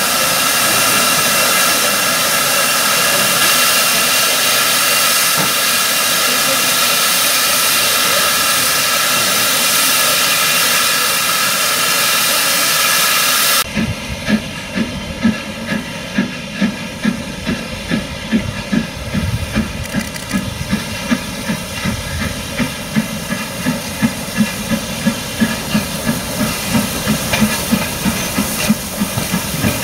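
GWR Castle class steam locomotive 5043 Earl of Mount Edgcumbe standing with its safety valves blowing off: a loud, steady hiss. About 14 seconds in this gives way to LMS Princess Coronation Pacific 46233 Duchess of Sutherland starting away, its exhaust beats coming about once a second at first and quickening.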